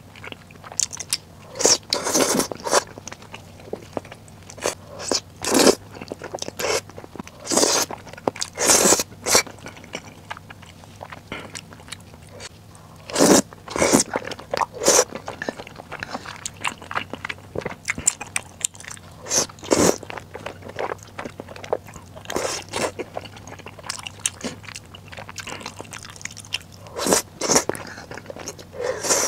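Close-miked eating: loud slurps of saucy noodles and chewy rice cakes come irregularly every second or two, with quieter wet chewing between them.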